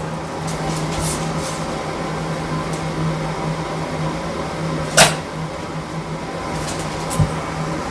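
A steady mechanical hum, like a small motor or fan running, with one sharp click about five seconds in and a fainter knock near the end.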